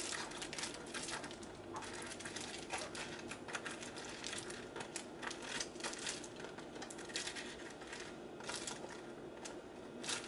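Aluminium foil being crinkled and pressed into shape by hand: a steady run of irregular small crackles and clicks.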